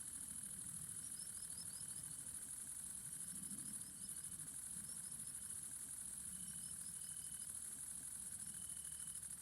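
Faint bird sound recording: a continuous high, insect-like reeling trill, with several runs of short falling chirps and a few brief whistled notes from other birds.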